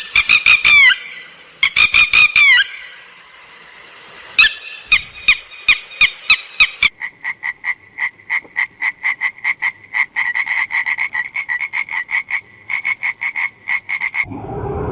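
An animal calling in rapid trains of short high-pitched pulses. It starts with two quick bursts of arching chirps, then settles into a long, even run of about six calls a second that stops abruptly near the end.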